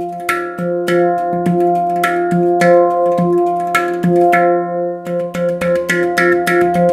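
Steel handpan tuned to an F Integral 9+1 scale, played with the fingertips on the central dome and the tone fields. Each struck note rings on under the next. The strikes come at about two a second, then much faster after about five seconds.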